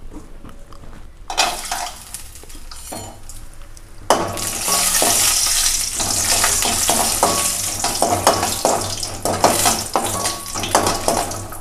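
Cashew nuts frying in hot ghee in an aluminium kadai: after a faint hiss, a loud sizzle starts about four seconds in and carries on. Through it, a perforated metal ladle clinks and scrapes against the pan as the nuts are stirred.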